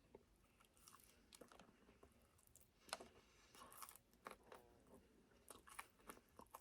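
Faint chewing with scattered soft crunches of fried chicken breading, close to the microphone.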